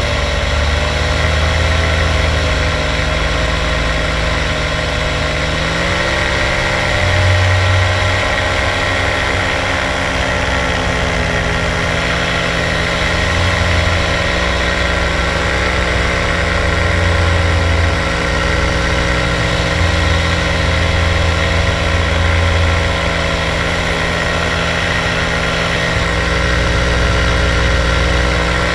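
Paramotor engine running steadily in powered paraglider flight. Its pitch steps up slightly about six seconds in and again around eleven seconds as the throttle is opened a little.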